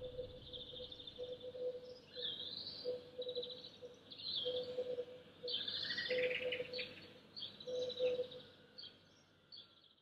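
Dawn chorus of songbirds: overlapping chirps and trills, with a lower note repeating underneath. The birdsong fades out near the end.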